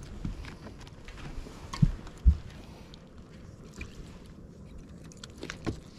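Handling noise on a fishing boat: scattered light clicks and knocks over a low steady rumble, with two heavy thumps close together about two seconds in.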